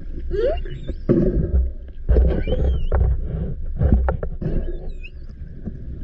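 Humpback whale vocalizing underwater: a rising whoop about half a second in, then high squeals that bend up and down, over a steady low rumble.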